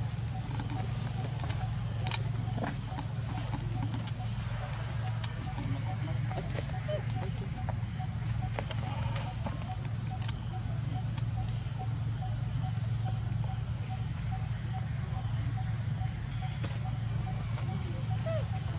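Outdoor ambience of steady high-pitched insect buzzing over a low steady hum, with a faint chirp repeating evenly and a few soft clicks.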